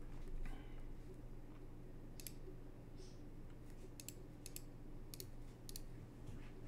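Computer mouse clicks: about six short, sharp clicks at uneven intervals, over a faint steady low hum.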